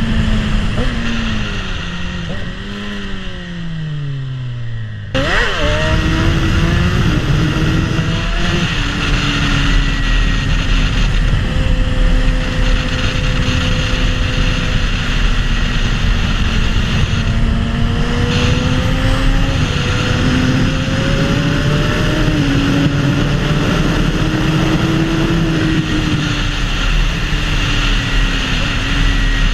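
2011 Suzuki GSX-R750's inline-four engine through a full Akrapovic exhaust, under way. For about five seconds the engine note falls steadily as the bike slows. After an abrupt change it runs at a steadier pitch with gentle rises and dips.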